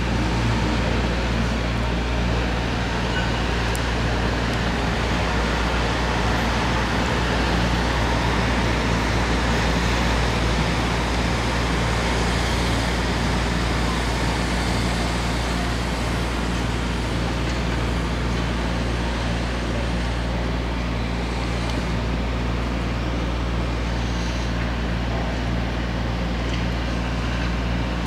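Steady low drone of a helicopter flying over the town, blended with the hum of street traffic.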